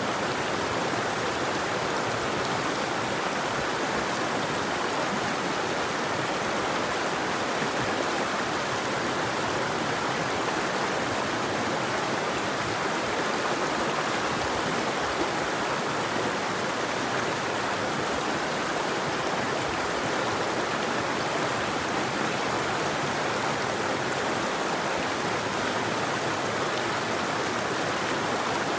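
River water flowing steadily over rocks, an even rushing noise with no birds.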